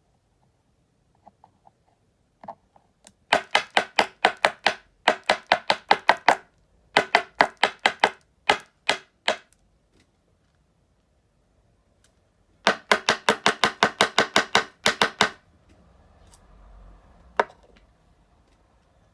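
Rapid runs of sharp clicks from fly-tying tools, about five a second, in three bursts of two to three seconds each, with a single click near the end.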